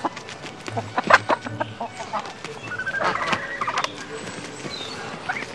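Farmyard chickens clucking in a series of short calls, mixed with calls from domestic geese.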